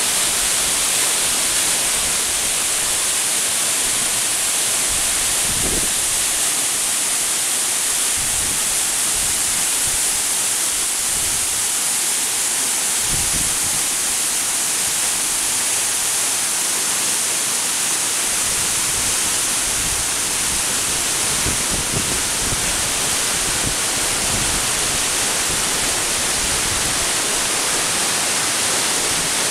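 Mountain waterfall rushing, a steady loud hiss of falling water with occasional low gusts of wind on the microphone.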